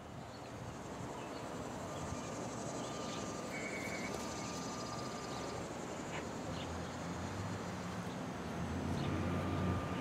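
Outdoor ambience: a steady high insect buzz with a few short bird chirps, and a low rumble that swells toward the end.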